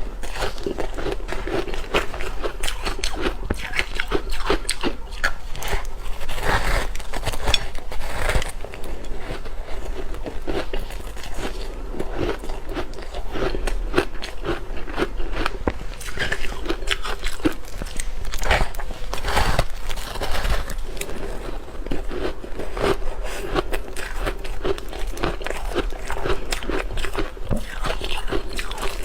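Hard ice being bitten and chewed close to the microphone: continuous, irregular crunching and crackling as the ice breaks up between the teeth.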